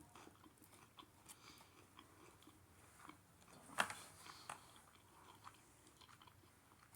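Faint chewing and eating sounds with small scattered clicks, and one louder click a little under four seconds in.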